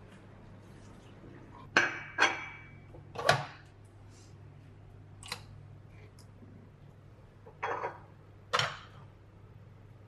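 About six short, sharp clacks and clinks of hard plastic and ceramic as a Nespresso Essenza Mini capsule machine and a ceramic coffee cup are handled, with the cup set on the machine's drip tray.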